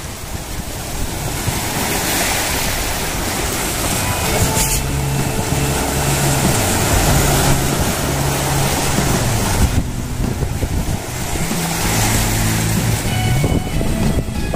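Sea waves breaking and washing over shoreline boulders, with wind rushing across the microphone. From about four seconds in, a low steady hum of shifting pitch runs underneath.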